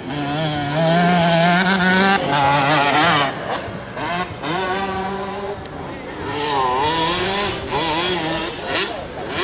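Motocross bike engines revving, their pitch rising and falling quickly as the throttle is worked. The engine sound is loudest in the first two seconds.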